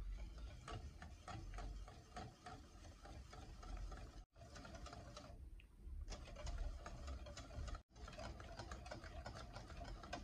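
Wire whisk beating thin crepe batter in a glass bowl: a quick, even run of light clicks and taps as the wires strike the glass. It breaks off abruptly twice.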